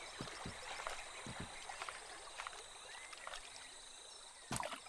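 Faint jungle-river ambience: a steady high insect drone over soft water noise, with scattered soft knocks and a brief louder knock near the end.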